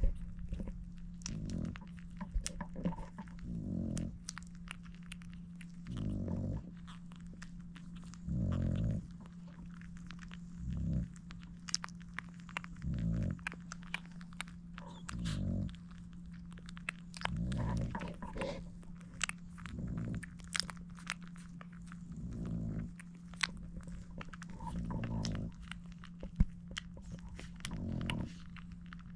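Newborn French bulldog puppies suckling at their mother's teats: many small, wet sucking and smacking clicks. A low sound recurs about every two seconds.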